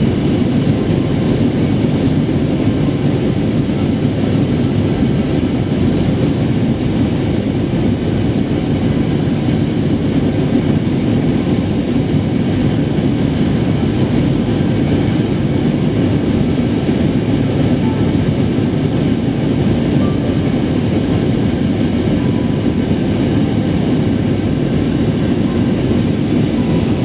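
Steady cabin noise of a jet airliner in flight: an even, loud rumble with no change.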